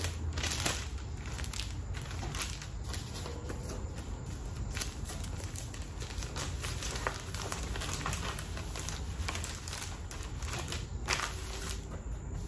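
Thin plastic crinkling and rustling with scattered small clicks and taps, as plastic shirt inserts and bags are handled. A steady low hum runs underneath.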